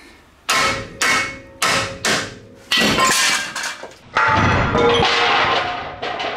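Hammer blows on a Ford TTB steering knuckle to break the ball joint studs loose: about five sharp, ringing metal strikes, then about four seconds in a longer clanging rattle as the knuckle comes free and drops.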